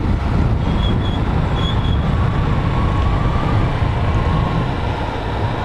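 Small-displacement motorcycle riding at road speed: a steady engine hum under heavy wind rumble on the rider's camera microphone.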